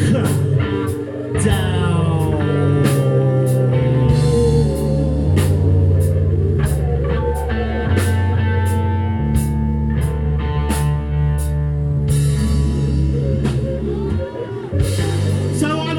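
Live psychedelic rock band playing an instrumental passage: electric guitars, bass guitar and a drum kit with cymbal strikes about twice a second, and gliding high tones over the top.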